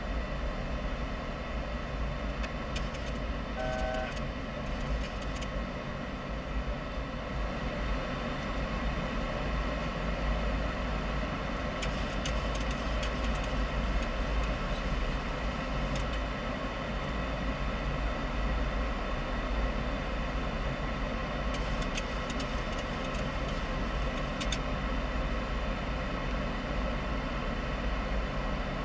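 Steady cockpit noise of a Boeing 737-800 in descent: a constant rush of airflow and engine noise with a steady hum, a short beep about four seconds in and a few faint clicks.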